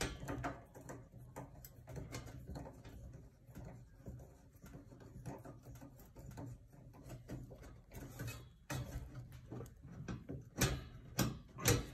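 Scattered small clicks and metallic knocks of a screwdriver and screw being worked by hand, fastening a gas cooktop igniter to its sheet-metal burner tray, with a few louder knocks near the end.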